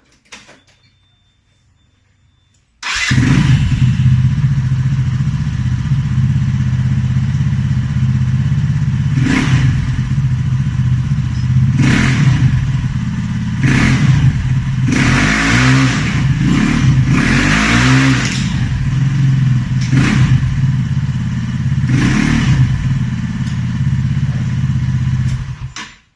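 Rusi RFI-175 motorcycle's single-cylinder four-stroke engine running through a DS4 Stage 2 powerpipe aftermarket exhaust. It comes in suddenly about three seconds in and idles loud and steady, with about eight quick throttle blips in the middle that make the exhaust note rise and fall. It cuts off just before the end.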